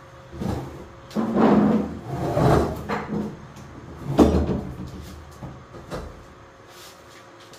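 Refrigerator being shifted and dragged across the floor: a run of scrapes and bumps, the loudest a sharp knock about four seconds in.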